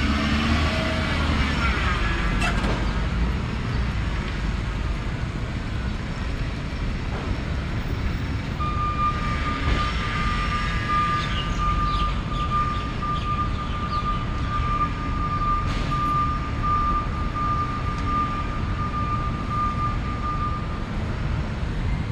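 Busy city-street traffic rumble, with vehicles passing. A single high electronic tone starts about a third of the way in, holds steady for around twelve seconds and stops shortly before the end.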